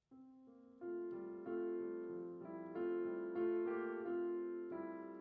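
Piano playing slow, sustained chords, each struck and then fading; it starts softly and grows louder about a second in.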